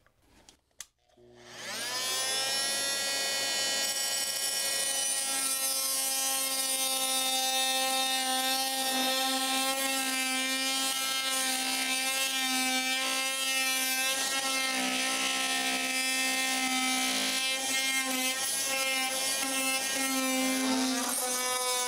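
Oscillating multi-tool starting up about a second in and running as a steady high whine while its blade undercuts a painted wooden door casing at floor level.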